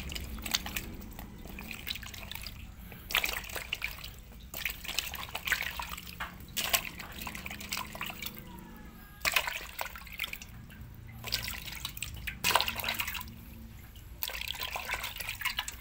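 Water sloshing and splashing in a metal pot as unpeeled bananas are washed by hand and lifted out, in irregular bursts.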